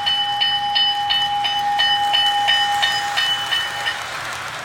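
Lionel O-gauge New York Central freight train set running on its track: rapid, regular clicking with a steady high electronic tone from the locomotive's sound effects, which cuts off about three seconds in.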